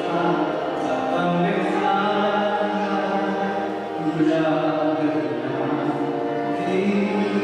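A male choir singing held, flowing melodic lines, accompanied by violins, a woodwind and an electric keyboard.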